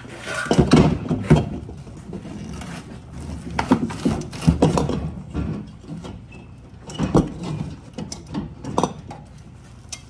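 Irregular knocks, clunks and scrapes of a replacement refrigerator compressor being handled and set down into the fridge's compressor compartment. The heaviest thuds come about a second in and again around four to five seconds, with smaller knocks near seven and nine seconds.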